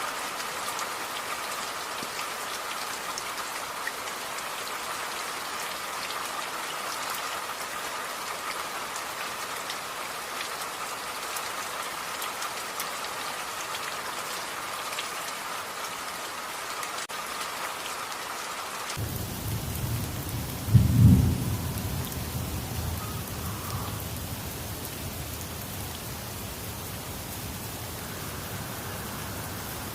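Steady rain falling, with scattered ticks of individual drops. About 19 seconds in the sound changes abruptly to rain with a low rumble, and a loud clap of thunder comes a couple of seconds later and rumbles away over a few seconds, leaving steady rain.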